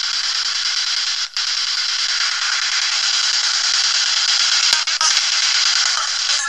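Ghost box radio scanning through stations: a steady hiss of radio static, broken by a brief dropout about a second in and a sharp click later on.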